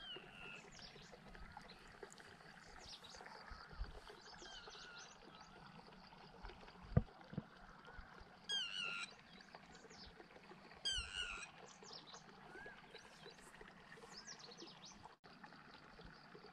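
Small birds chirping and calling, with two louder, sharper calls in the middle, over a faint hiss of shallow water. A single dull knock about seven seconds in.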